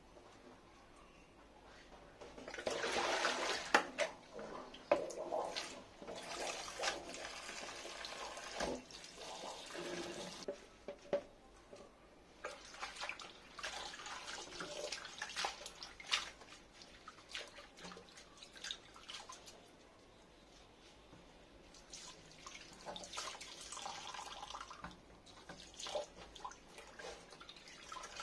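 Water splashing in a kitchen sink as leafy greens and herbs are rinsed by hand in a bowl of water. The splashing comes in stretches of a few seconds, with drips and sharp clicks between.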